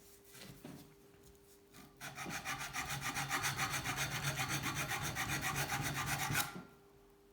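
Dexter hand file rasping across a metal part clamped in a vise: light scraping at first, then from about two seconds in a steady run of quick, even strokes lasting about four seconds before stopping.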